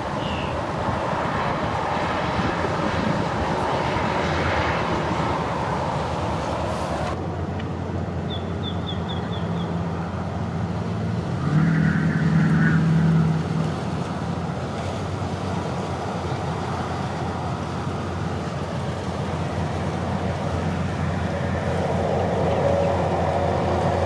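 Steady outdoor background rumble like distant road traffic, which changes abruptly about seven seconds in. Soon after comes a quick run of five high chirps, and around twelve seconds in a louder low hum lasts about two seconds.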